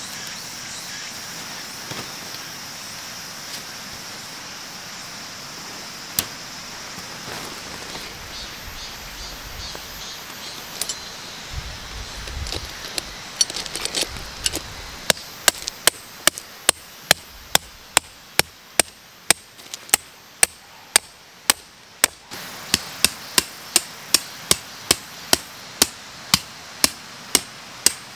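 A metal tent peg being hammered into gravel: a steady run of sharp strikes, about two a second, starting about halfway through, with a short pause near the end before the strikes carry on. Before the hammering there are quieter handling sounds.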